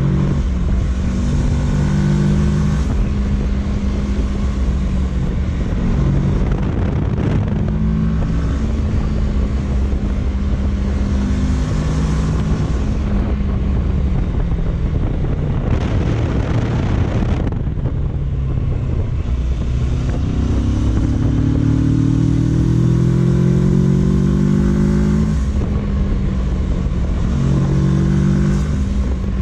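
Kawasaki Versys 650's parallel-twin engine running under way, its note stepping with the gears and climbing steadily under acceleration about two-thirds of the way through, over constant wind rush. A brief whoosh a little past the middle.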